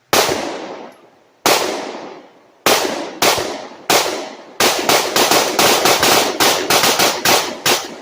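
Gunfire outdoors: a handful of single shots a second or so apart, then a fast string of shots at about four a second. Each shot is a sharp crack with a short fading echo.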